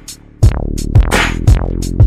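Hip-hop instrumental beat: a drum-machine kick and snare pattern over a steady bass. The beat drops out briefly at the start and comes back in about half a second in.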